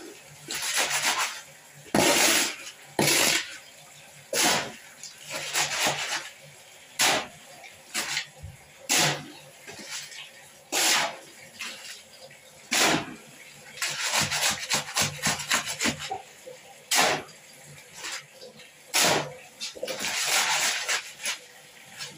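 Shovel scraping, turning and slapping wet concrete that is being mixed by hand on the floor. The strokes are wet and scraping and come every second or two, with longer runs of scraping around the middle and near the end.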